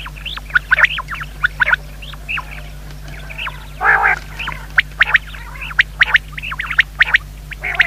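Common quails calling: many short chirping calls in quick, overlapping succession, with a harsher, noisier call about four seconds in, over a faint steady low hum.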